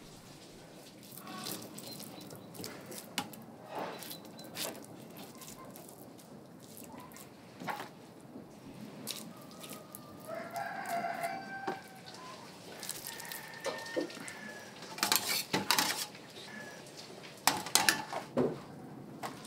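A rooster crows about ten seconds in, over a background of scattered sharp knocks and clatter. The loudest knocks come near the end.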